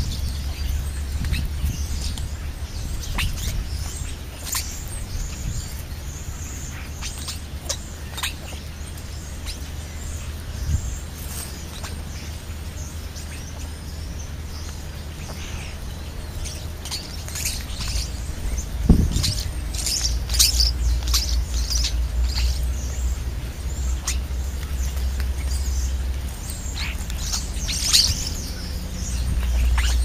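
European starlings calling while they feed at close range: scattered short, high chirps and whistles, busiest in the last third. A steady low rumble runs underneath, and there is one sharp thump about two-thirds of the way through.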